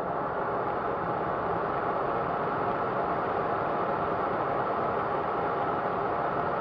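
Twin micro turbojet engines of a Colomban CriCri Jet running steadily, heard from inside the cockpit as an even rushing noise that grows slightly louder about half a second in.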